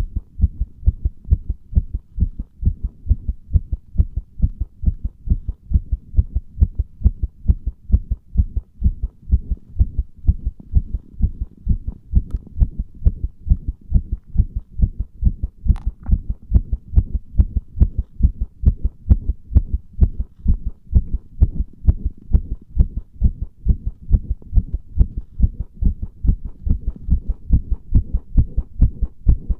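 Human heartbeat recorded with the microphone pressed against the chest: a steady, regular rhythm of low, muffled thuds.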